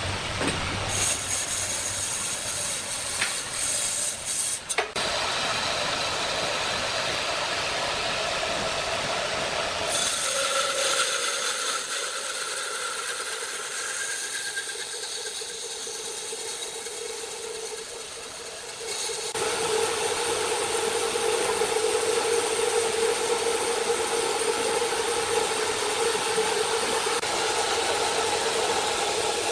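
Sawmill machinery running and sawing wood: a steady mechanical din with a humming tone. The sound changes abruptly about a second in, about five seconds in, around ten seconds and again around nineteen seconds.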